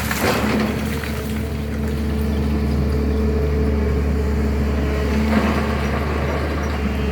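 SANY excavator's diesel engine running steadily, with a steady low drone and two held tones above it. Brief rough noise bursts come at the start and again about five seconds in.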